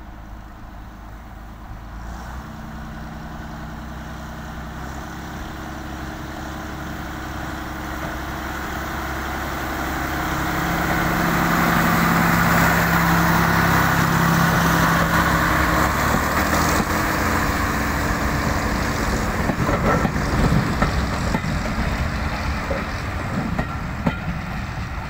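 Small diesel shunting locomotive hauling coaches, its engine running steadily and growing louder as it approaches, loudest as it passes about halfway through. The coaches' wheels then click over the rail joints as they roll past.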